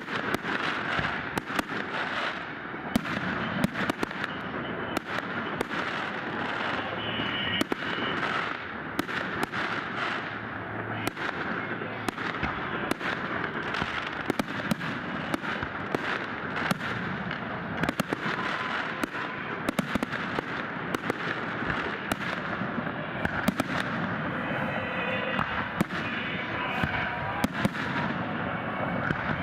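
Fireworks display: a continuous volley of bangs and crackling bursts, many sharp reports a second over a dense crackle.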